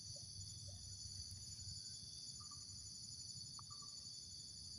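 Steady high-pitched chorus of insects, with a faint low rumble underneath.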